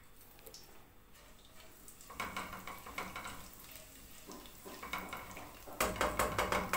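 Cumin seeds sizzling and crackling in hot oil in a non-stick kadhai as a tempering (tadka), starting about two seconds in, while a silicone spatula stirs them; the sizzle is loudest near the end.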